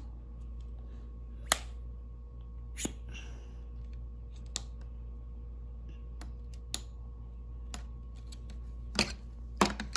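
Scattered sharp clicks and taps of plastic snap-together circuit parts being handled on a plastic base grid, about six of them a second or two apart, over a steady low hum.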